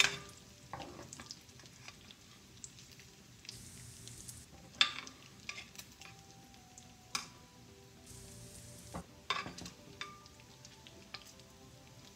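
Diced bacon sizzling in a stainless steel pot while a metal spoon stirs it, with several sharp clinks of the spoon against the pot.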